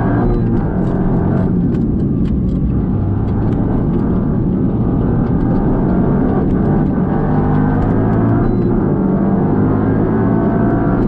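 Toyota Yaris gymkhana car's engine heard from inside the cabin, revving up and down as the car is driven hard through the course, its pitch climbing and dropping repeatedly, with a few short clicks.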